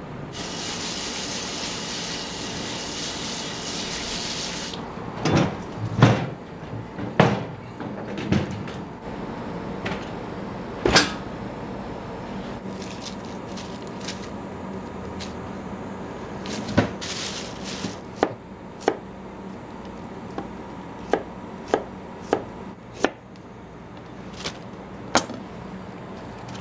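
Kitchen work in a ramen shop: a hiss for the first few seconds, then scattered wooden knocks and, in the second half, a run of sharp clicks about half a second to a second apart, over a steady low hum.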